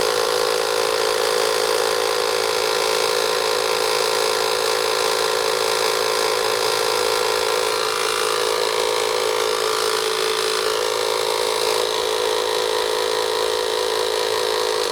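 12V portable tire inflator's electric compressor running steadily as it pumps air into a truck tire: a loud, even drone that starts abruptly and cuts off suddenly at the end.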